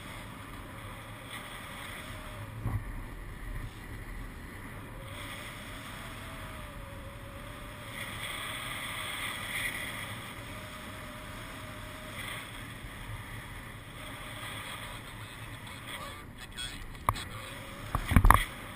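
Steady wind rushing over the camera microphone during paraglider flight, with a faint wavering tone in the middle. A few sharp knocks near the end.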